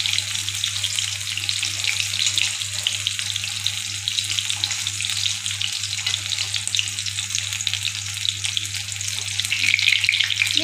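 Batter-coated paneer pakoras sizzling and crackling as they deep-fry in hot oil in a kadhai while being turned with a slotted spoon, a dense crackle that grows louder near the end, over a steady low hum.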